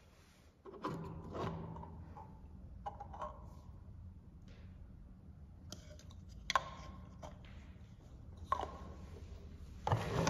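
Small plastic toy pots, lids and a toy kettle being handled: light, irregular clicks and taps as lids are lifted off and fitted back and pieces are set down on a mat, with a few sharper clicks in the second half.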